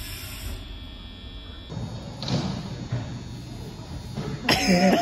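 A single thump about two seconds in, then a loud yell near the end.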